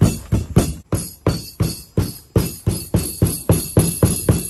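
Wooden pestle pounding Twix candy bars in a wooden mortar: a steady run of dull wooden knocks, about three a second.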